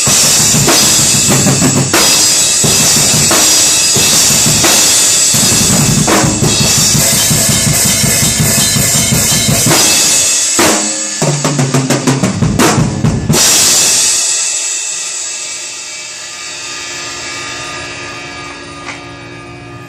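Drum kit played freestyle, with bass drum, snare and cymbal hits. A quick fill comes about ten seconds in and ends on a final hit about fourteen seconds in. The cymbals then ring on and slowly fade out.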